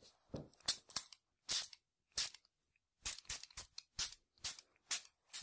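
Barber's hair-cutting scissors snipping a child's hair: a dozen or so short, crisp snips at an uneven pace, some in quick pairs, with quiet between them.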